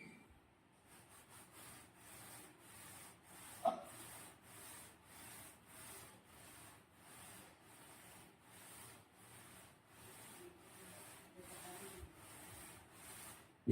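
Faint, steady rhythmic rubbing or scraping, about two strokes a second, with a single short click about four seconds in.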